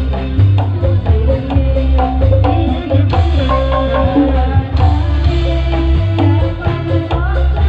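Badui folk music: hand drums playing a busy, steady rhythm over a heavy bass, with a melody line above.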